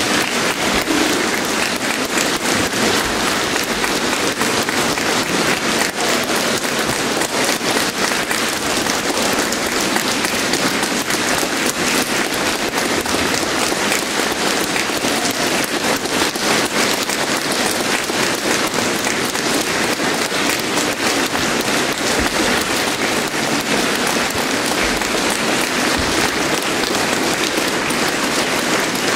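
A large audience applauding steadily, a dense, even clatter of many hands clapping that does not let up.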